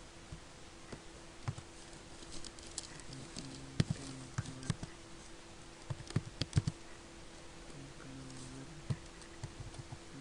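Computer keyboard typing: irregular key clicks in short runs with pauses between them, the loudest cluster about four seconds in and another around six seconds in.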